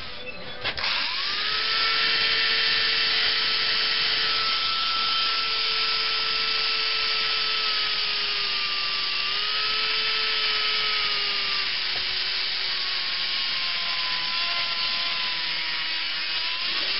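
Small power grinder spinning up and grinding steel on a U-joint cap in a driveshaft yoke, cutting through the weld that holds the cap. A steady whine that dips slightly in pitch now and then as the wheel bites.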